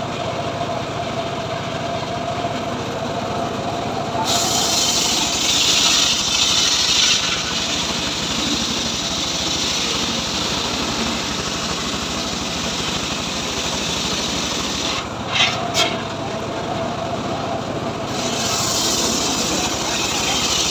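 Engine-driven homemade circular sawbench running steadily, its blade ripping lengthwise through a log with a loud hissing rasp about four seconds in and again near the end. In between the blade spins free with a steady whine, and two sharp knocks come around the middle.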